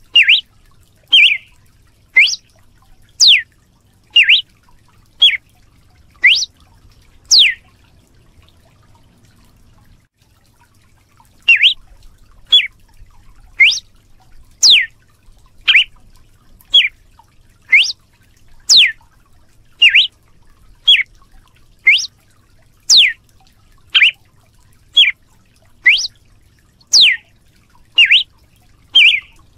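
Red-cowled cardinal giving a long series of short, sharp whistled notes, about one a second, some sweeping down and some up. There is a pause of a few seconds about a third of the way in.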